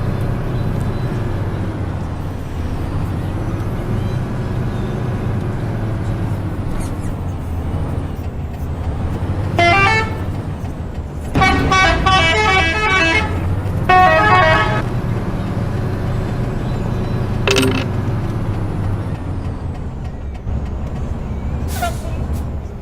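Bus telolet horn playing three bursts of quick multi-note melody, the middle one the longest, over the bus engine idling steadily. Two short sharp sounds follow later on.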